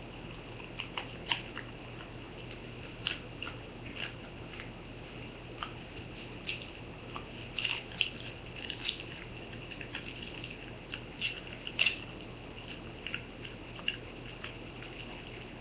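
Small dog chewing chicken jerky: irregular crunching and clicking bites, a few louder ones about a second in, around the middle and near the end.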